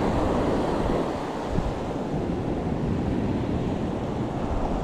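Steady ocean surf washing on the beach, mixed with wind noise on the microphone.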